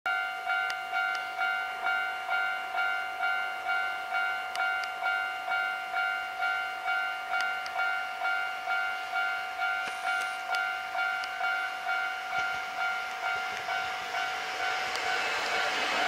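Japanese railway level-crossing warning bell ringing, a repeating electronic ding a little over two strikes a second. In the last couple of seconds the running noise of a Hankyu 1300 series train swells as it arrives and passes close by, rising over the bell.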